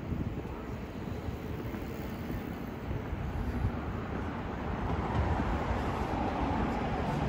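Steady city street noise of traffic passing, growing a little louder in the second half.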